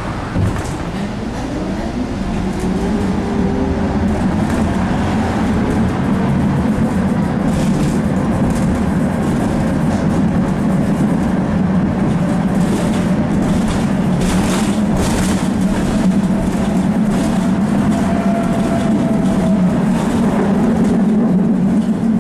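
Electric tram running on its rails, heard from inside the car: a steady motor hum with a whine that rises in pitch over the first few seconds as it picks up speed, and wheels clattering over the track.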